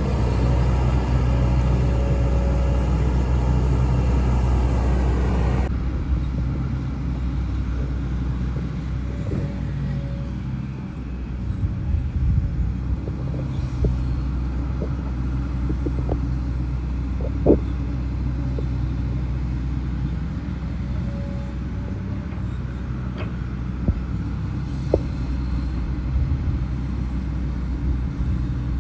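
Hitachi Zaxis hydraulic excavator's diesel engine running steadily, working harder for the first six seconds and then dropping suddenly to a lower, quieter note. A few sharp clicks and knocks come through, the loudest about halfway.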